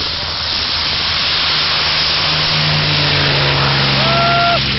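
P-51D Mustang's Packard Merlin V-12 engine at full take-off power as the fighter rolls past, loud and growing louder to a peak about four seconds in, its pitch dropping as it passes. A brief high whine sounds near the end.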